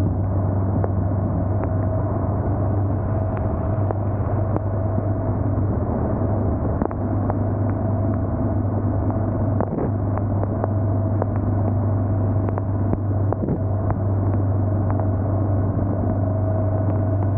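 Motorcycle engine and road noise while riding at a steady speed: a constant low drone with scattered light ticks.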